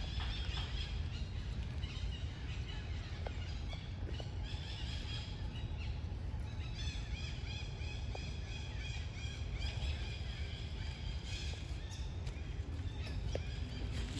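Outdoor ambience: many high, quick chirping calls repeating over a steady low rumble, the chirping thickest through the middle and later part.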